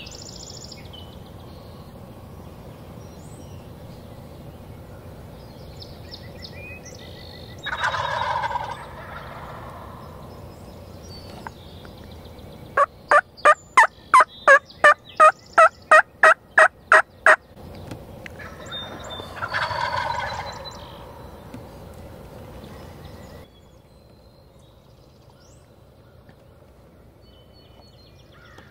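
Wild turkey gobblers gobbling twice, about eight seconds in and again about twenty seconds in. Between the gobbles comes a run of about a dozen evenly spaced turkey yelps, nearly three a second.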